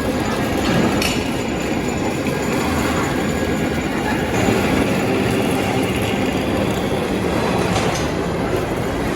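Metal lathe running: a steady mechanical din with a low hum and a few sharp clicks.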